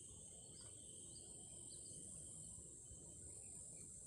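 Faint, steady high-pitched chorus of insects such as crickets, with a few brief chirps over it.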